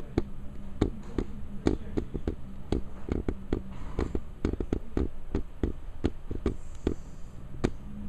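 Crackling log fire from a virtual-fireplace video, played through a TV's speakers: irregular sharp pops several times a second over a steady low hum.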